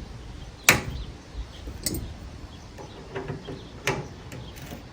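A few sharp knocks and clacks from parts and tools being handled during the wheelbarrow repair. The loudest comes just under a second in, with two more near two and four seconds, and light ticks between.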